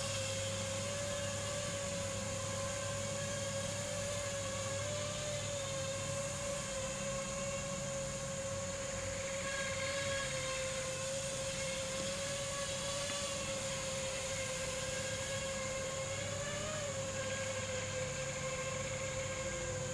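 Upgraded 5-inch FPV quadcopter in flight, its iFlight Xing-E motors and Nazgul 5140 propellers giving a steady buzzing whine. The pitch wavers slightly with throttle and bends up briefly about five seconds in and again about seventeen seconds in.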